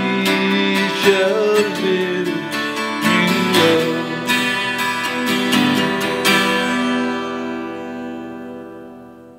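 Twelve-string acoustic guitar strummed to close a hymn. A few strums, then a final chord struck about six seconds in rings out and slowly fades away.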